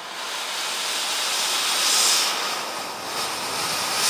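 Dyson DC Animal cordless handheld vacuum running, a steady rushing airflow noise that swells louder about two seconds in and again near the end.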